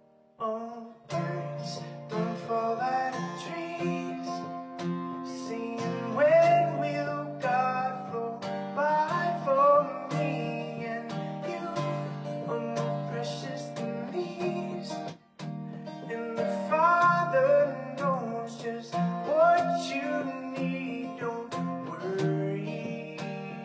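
Instrumental song intro: a strummed acoustic guitar with a sliding melodic lead line over it. The music comes in about half a second in and drops out briefly about 15 seconds in.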